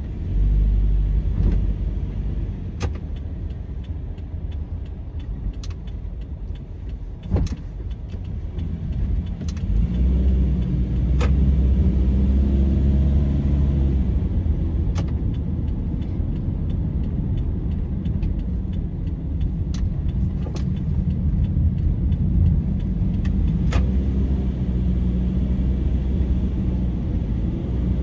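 Car driving, heard from inside the cabin: a steady low engine and tyre rumble that grows louder about ten seconds in, with scattered light clicks and knocks.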